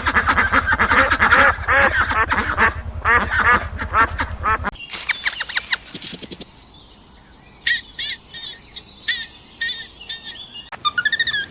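Birds calling: a dense, overlapping chorus of quacking calls for the first four and a half seconds, then, after a brief lull, a string of short, high chirps.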